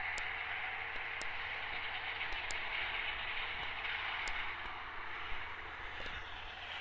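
Distant tractor with a front-and-rear mower combination working a meadow: a steady mechanical drone with a low hum beneath it and a few faint ticks.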